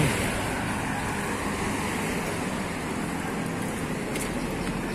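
Steady street traffic: cars and motorbikes running along a city road.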